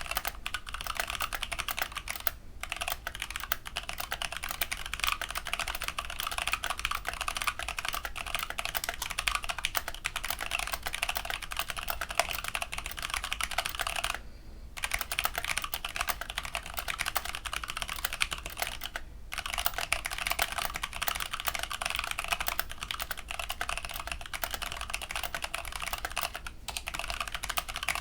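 Fast, steady typing on a Hexgears Supernova mechanical keyboard with Hako Clear tactile switches: a dense run of keystroke clicks, broken by brief pauses four times.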